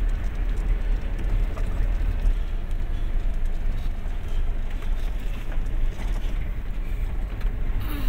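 A vehicle driving on an unpaved road, heard from inside the cab: a steady low rumble of engine and road noise.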